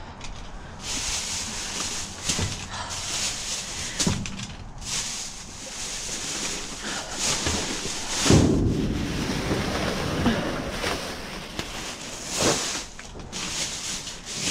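Clear plastic trash bags rustling and crinkling as they are pushed and dragged about with a reacher-grabber pole. A few knocks are heard, with one louder thump about eight seconds in.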